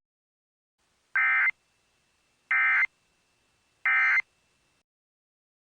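Emergency Alert System end-of-message tones: three short, identical bursts of SAME digital data, each under half a second, about a second apart. They signal the end of the alert broadcast.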